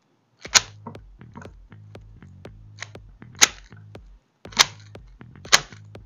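MoYu RS3M V5 Maglev 3x3 speed cube being turned fast in a corner-cutting test. Its plastic layers clack sharply as they snap round, with four loud clacks and many lighter clicks between.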